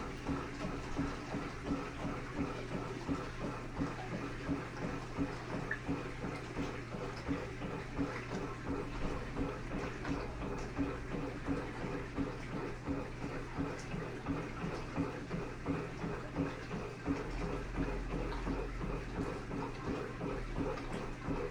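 Electrolux LTD15 top-loading washing machine agitating a large load of mixed laundry at maximum water level. Water sloshes in a steady rhythm of about two strokes a second over a steady low hum.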